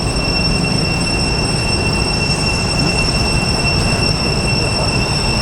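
Cicadas droning with a steady high-pitched whine over a low rumble.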